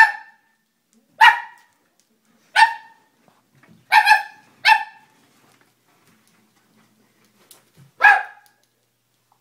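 Doberman barking: five sharp single barks in the first five seconds, then one more after a pause of about three seconds.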